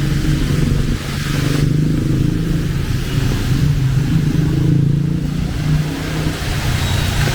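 Motor vehicle engines running close by on a city street, their pitch shifting as they pass, with a steady hiss of rain over them.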